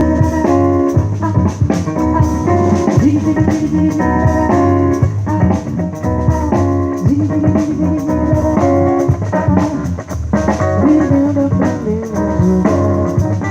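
Live band playing an instrumental passage with guitar and drum kit over a steady bass line, without singing.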